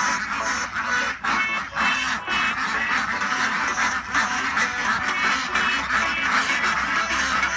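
A large flock of Indian Runner ducks quacking together in a dense, continuous chorus.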